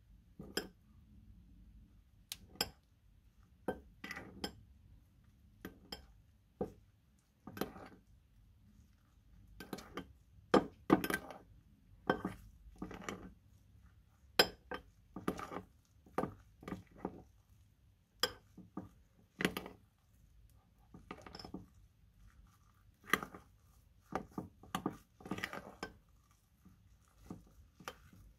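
Metal spoon stirring glitter glue and fake snow in a cut-glass bowl: irregular clinks and short scrapes of the spoon against the glass.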